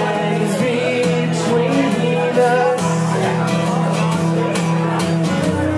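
Acoustic guitar strummed in a steady rhythm, an instrumental passage with chords ringing on.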